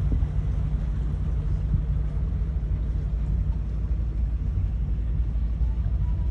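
Engine running with a steady low rumble, unchanging throughout.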